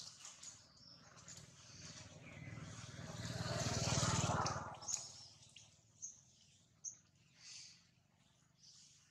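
A motor vehicle passing, its sound building to a peak about four seconds in and then fading away, with short bird chirps around it.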